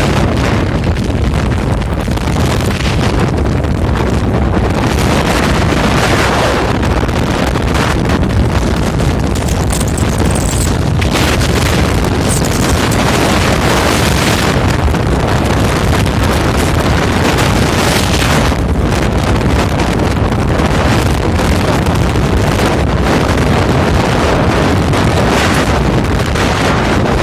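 Gale-force blizzard wind of about 27 m/s buffeting the microphone: a loud, continuous rushing noise with deep rumble, swelling in gusts.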